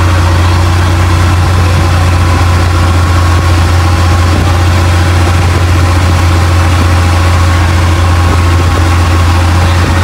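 Boat engine running steadily at cruising speed, a loud low drone that holds the same pitch throughout, with water rushing and spraying along the hull.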